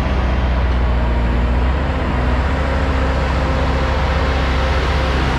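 Komatsu D65 crawler dozer's diesel engine running steadily under load while pushing clay, a constant low drone.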